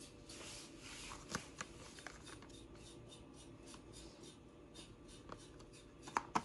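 Small paperboard product carton handled in the hand: soft rubbing and rustling with a few light clicks, then two sharp taps near the end as the box meets the wooden tabletop.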